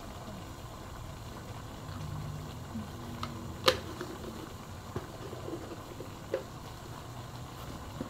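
Curry ingredients cooking in a wok over a gas burner, a steady low sizzling hiss. A sharp click comes about three and a half seconds in, with a couple of lighter taps after it.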